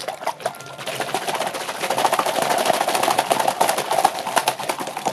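Dense, rapid crackling handling noise from a squishy toy being worked in the hands. It builds about a second in and eases near the end.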